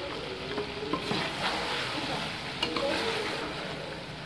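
A steel ladle stirring chicken and potato curry in a metal pot, scraping and knocking against the pot twice, while the masala with freshly added ground spices sizzles underneath.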